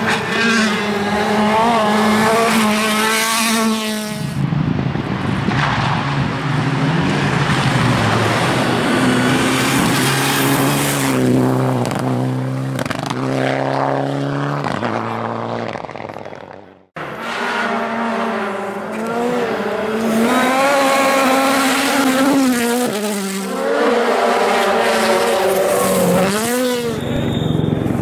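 Turbocharged four-cylinder rally cars at full throttle on a stage, engine pitch climbing and dropping sharply with quick gear shifts as each car passes. The sound cuts off abruptly partway through and picks up on another car's pass.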